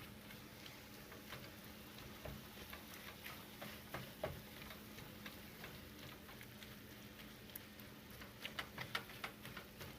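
Ground turkey sizzling faintly in a frying pan while it is stirred, with scattered light clicks of the spoon against the pan that come quicker near the end.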